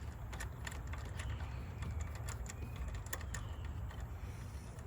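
Irregular light clicks and taps of a ratchet and socket working loose spark plugs, over a low steady background rumble.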